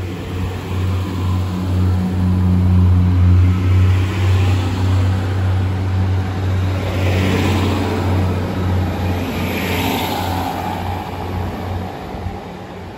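Diesel multiple-unit train, Class 150 Sprinter unit at the rear, pulling out and away: its underfloor diesel engines give a steady low drone under wheel-on-rail noise. Two hissing swells come in the second half, and the sound eases off near the end as the train draws away.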